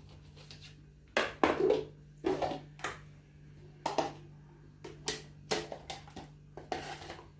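Halved oranges being squeezed by hand for juice: a series of about ten short, irregular squelching and knocking sounds.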